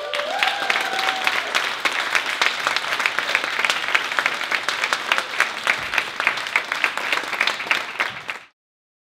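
Audience applauding, a dense patter of many hands clapping, which cuts off abruptly about eight and a half seconds in.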